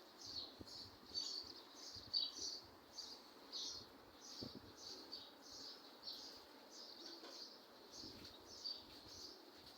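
Hand milking of a buffalo: faint, even squirts of milk into a pail, about two a second.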